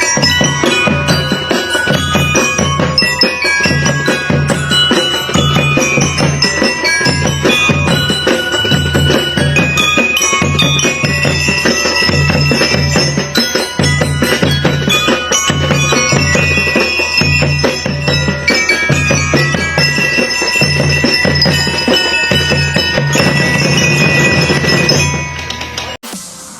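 Background music: a busy melody of short, bright notes over a steady bass beat about once a second. It fades out near the end as another track begins.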